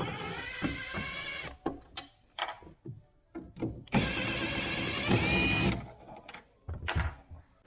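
A cordless power drill's small electric motor whining in two bursts of about a second and a half each, one at the start and one about four seconds in. Separate clicks and knocks fall in between.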